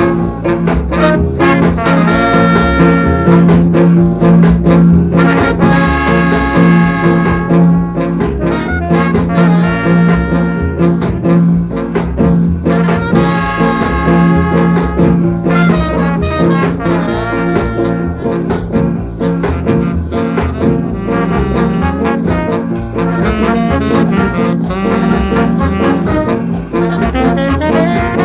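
Jamaican ska instrumental with a horn section of trombone, trumpet and saxophone playing held melody lines over a steady bass and drums.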